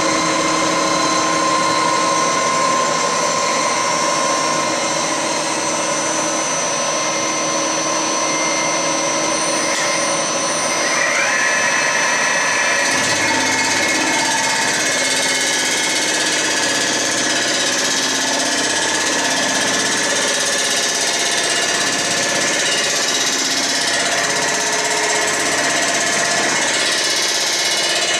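Milling machine running steadily, its large cutter head taking a decking pass across the cast-iron deck of a Ford Model A engine block to true the surface. A whine rises in pitch about eleven seconds in and then holds steady.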